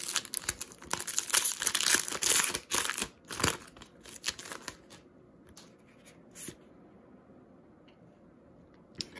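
A Magic: The Gathering booster pack's foil wrapper crinkling and tearing as it is ripped open by hand. The crackling dies away after about four and a half seconds, leaving a few faint clicks.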